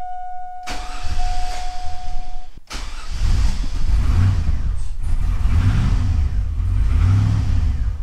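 A 2000 Chevy Tahoe's 5.3-litre LS V8 starting: after a couple of sharp clicks and a brief lull it catches about three seconds in. It then runs unevenly, the revs rising and falling as it is held on the throttle because it won't idle. The engine is misfiring on cylinders 7 and 8. A steady electronic tone sounds over the first two and a half seconds and stops.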